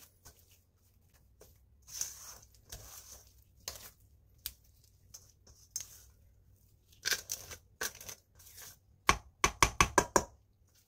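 Silicone spatula scraping and folding soft creamed butter, sugar and egg batter around a stainless steel bowl, in short separate wet strokes. Near the end, a quick run of about seven sharp knocks against the bowl, the loudest sound.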